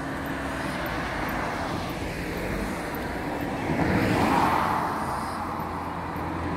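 Road traffic noise, with a passing vehicle swelling to its loudest about four seconds in, then fading.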